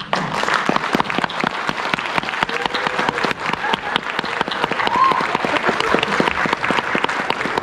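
Audience applauding: many hands clapping steadily, with a brief voice calling out about five seconds in.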